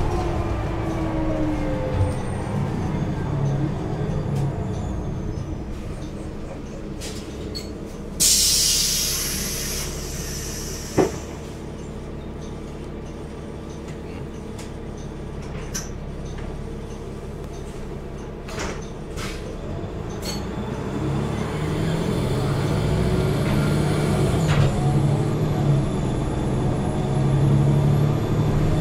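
Cabin sound of a Nova Bus LFS with a Cummins ISL9 diesel and Allison six-speed automatic: the drivetrain whine falls in pitch as the bus slows to a stop. About eight seconds in there is a loud burst of compressed-air hiss from the bus's air system, then a sharp click, and a quieter stretch at idle. In the last several seconds the engine builds again as the bus pulls away.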